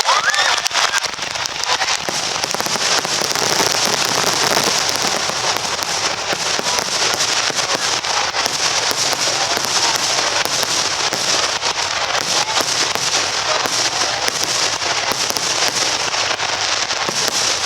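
Aerial fireworks crackling: a dense, continuous stream of many small pops and crackles at a steady level.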